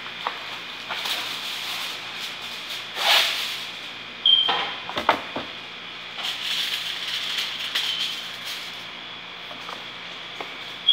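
Steady kitchen hiss with a few knocks and clinks of metal cookware, and a short high squeak about four seconds in.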